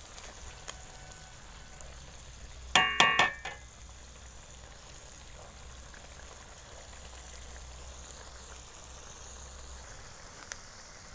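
A metal spatula clangs and scrapes against a metal kadhai about three seconds in, with a short metallic ringing. Under it runs the low, steady hiss of the gravy simmering on the stove.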